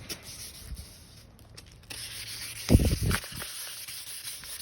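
Hand wet-sanding of fresh automotive clear coat with 1500-grit paper on a sanding block, a faint rubbing hiss that grows stronger about two seconds in. A thump sounds near three seconds in.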